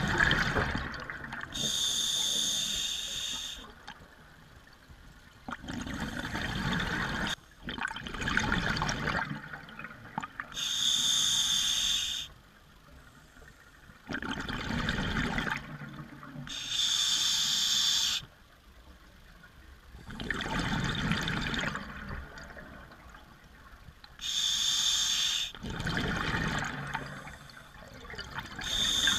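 Scuba diver breathing through a regulator underwater, about four breaths. Each breath is a hissing inhale through the demand valve followed by a longer rush of exhaled bubbles.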